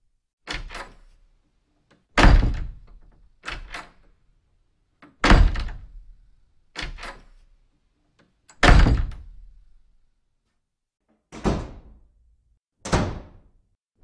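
Doors being shut: three times a short latch rattle is followed about a second and a half later by a loud thunk, first a front door, then a heavy door. Two shorter single bangs follow near the end.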